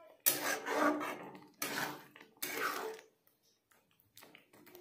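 Metal spatula scraping and stirring thick tomato pickle around a steel kadhai: three scraping strokes, then a pause near the end.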